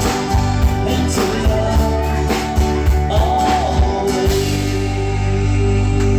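Live rock band with drums, electric guitars and a singer playing the close of a song. The drum hits stop about four seconds in and the band holds a final chord.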